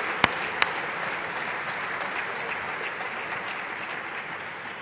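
Audience applauding, slowly dying away, with a few sharp clicks in the first second.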